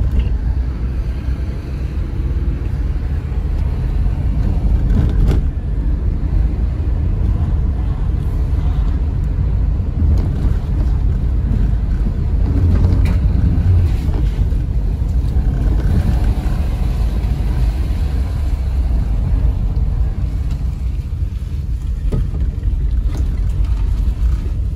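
Car cabin noise while driving at low speed: a steady low engine and tyre rumble, with a few short knocks along the way.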